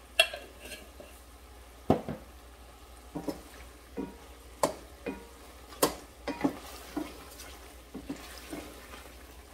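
A wooden spoon stirring chicken pieces in a stainless steel pot, knocking and scraping against the metal in irregular strokes, the loudest knocks just after the start and about two and six seconds in. The chicken fries quietly in the pot as the freshly added turmeric is mixed in.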